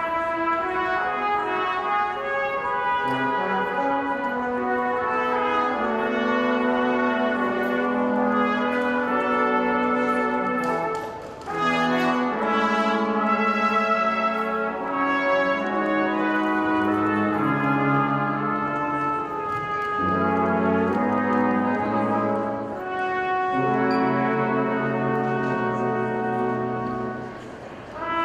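Brass ensemble playing holiday music in several parts, with held chords and low bass notes, phrase by phrase with short breaths between phrases.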